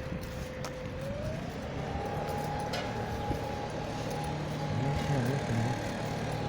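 Heavy road-works machine running, a low engine rumble under a steady whine that rises in pitch about a second in and then holds.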